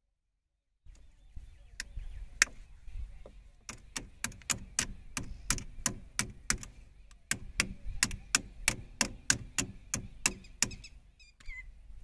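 Repeated sharp metal striking, a hammer working the universal-joint cross of a blower sprayer's drive shaft into its yoke. The blows come irregularly at first, then settle into a steady run of about three or four a second before stopping near the end.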